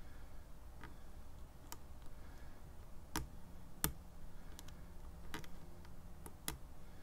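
Lock pick clicking against the pins inside a BEST SFIC padlock core: a handful of sharp, irregular metallic clicks, the loudest a little under four seconds in.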